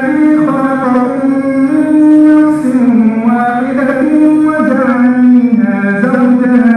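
An imam's solo male voice reciting the Qur'an aloud in a melodic chant, holding long notes that step up and down in pitch.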